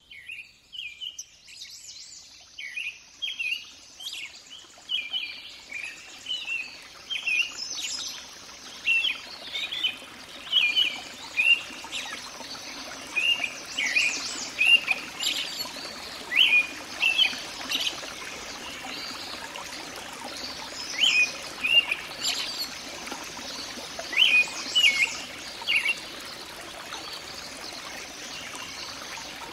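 Small birds chirping in short repeated phrases over a steady rush of running water; the birdsong stops a few seconds before the end, leaving only the water.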